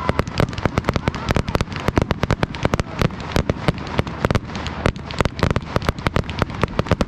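Fireworks display: a dense, rapid barrage of bangs and crackles, several a second.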